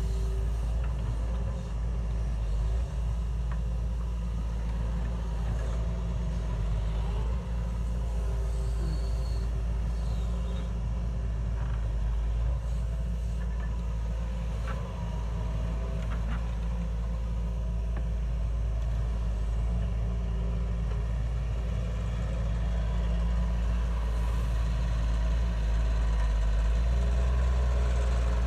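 A heavy machine's engine running steadily with a deep low rumble, growing a little louder near the end.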